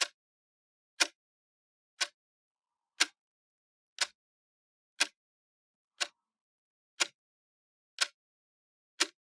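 Clock ticking once a second, steady even ticks with silence between them.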